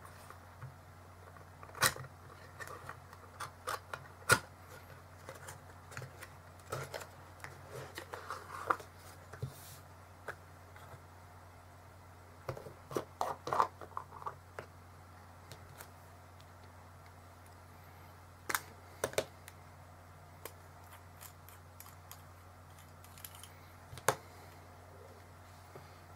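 Clicks, taps and light knocks of small objects handled on a desk: an ink bottle taken from its cardboard box and uncapped, and a fountain pen taken apart and dipped to refill, in several short clusters. A steady low hum sits underneath.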